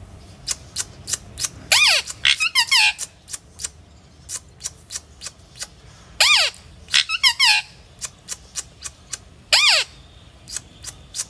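Indian ringneck parakeet giving three bouts of shrill calls, each note dropping in pitch, with many sharp clicks in between.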